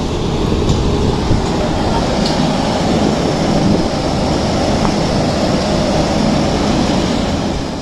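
Steady outdoor background noise of an open construction site: a low rumble under a hiss, falling away near the end.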